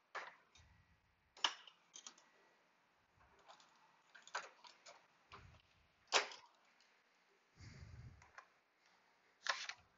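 Scattered sharp clicks and clinks of mechanic's tools being handled in an engine bay, with a short low hum about eight seconds in.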